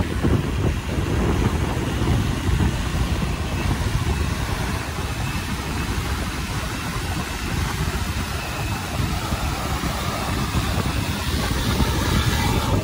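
Coota Copter Trident 5000 fishing drone running its rotors as it flies overhead and comes in to land, under steady wind buffeting on the microphone.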